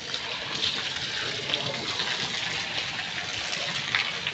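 Hailstorm: hail and rain pelting down, a steady dense hiss with scattered sharp ticks of hailstones striking.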